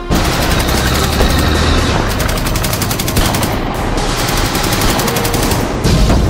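Sustained rapid machine-gun fire, a fast even stream of shots, with a heavier blast near the end as a tank is hit.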